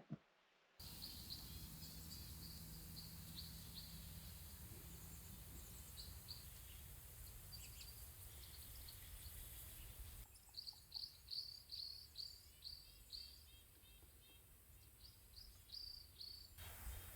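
Songbirds chirping faintly in runs of quick, high chirps over a steady outdoor hiss.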